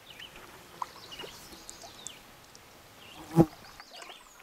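Faint outdoor nature ambience: scattered short bird-like chirps over a steady hiss, with one short, much louder low sound about three and a half seconds in.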